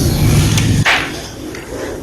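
Blocks of gym chalk being crushed: a dense crunching that gives way to a sharp snap just before a second in, followed by lighter crumbling.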